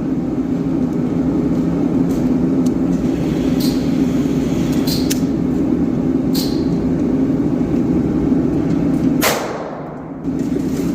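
A single sharp gunshot about nine seconds in, with a decaying ring after it, over a steady low rumble; a few lighter sharp clicks come earlier. The shot is from a pistol fitted with an Advantage Arms .22 LR conversion kit.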